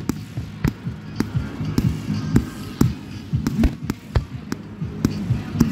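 Fireworks display: a rapid, irregular string of sharp bangs and pops from aerial shells and comets bursting, several a second, with music playing underneath.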